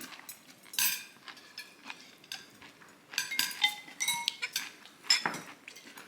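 Cutlery clinking and tapping against dishes: a string of short, sharp clicks, some ringing briefly.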